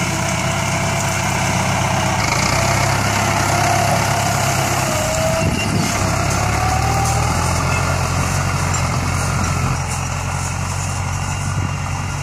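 Ford New Holland farm tractor's diesel engine running steadily under load while it pulls a ridging and fertilizer implement through the soil.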